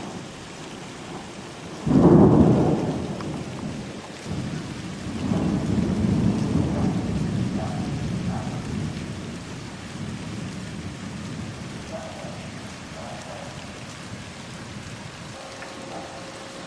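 Thunder over steady rain: a sudden loud clap about two seconds in, then a long rolling rumble from about five seconds in that slowly fades away.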